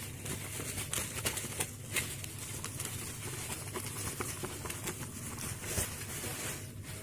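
Light rustling and small irregular clicks of packaging being handled as a mini Bluetooth speaker is unboxed.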